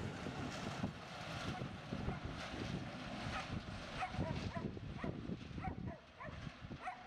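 Loaded freight wagons of a cement train rumbling and clattering over the rails as the end of the train passes and draws away, fading about six seconds in. Through the second half a dog yaps repeatedly.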